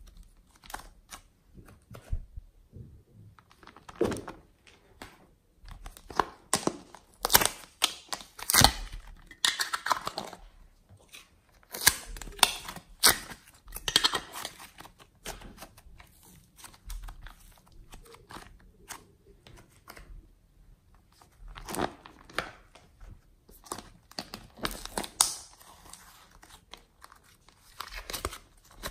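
Hands squishing and stretching slime, giving irregular clusters of sticky crackles, pops and tearing sounds.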